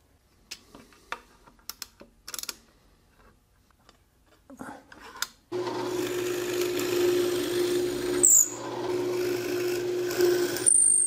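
Light clicks and knocks of clamps being handled, then about five and a half seconds in a benchtop drill press starts and runs with a steady hum, boring 5/16-inch dowel holes into the clamped hardwood plane body. Two brief high squeals as the bit cuts, one near the end.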